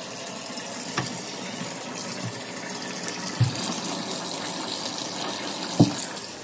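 Hot water running from a bathtub faucet, gushing steadily from the spout into the tub, with a few short knocks as the handle is worked.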